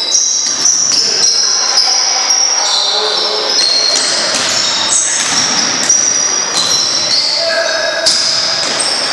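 Basketball game on an indoor hardwood court: high-pitched sneaker squeaks on the floor, a ball bouncing, and players' voices, echoing in the hall.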